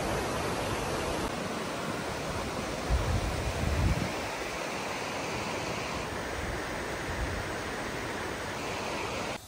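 Rushing water of a mountain stream, a steady even noise, with a brief low rumble about three seconds in.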